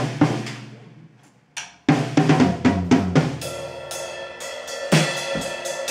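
Acoustic drum kit struck once at the start and left to ring out, fading for almost two seconds. The drums then come back in with a run of strikes about two seconds in. A little later, sustained electric guitar chords ring under the drumming.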